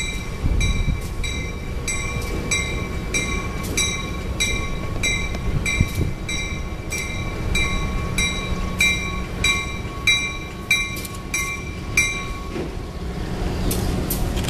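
Grade-crossing warning bell striking in a steady rhythm, a little under two strikes a second, and stopping about twelve seconds in. Under it is the steady low rumble of an Indiana Harbor Belt diesel locomotive pulling a freight train slowly toward the crossing.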